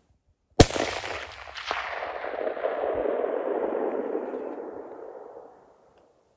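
A single hunting-rifle shot about half a second in, followed by a long rolling echo off the surrounding terrain that swells and then fades over about five seconds.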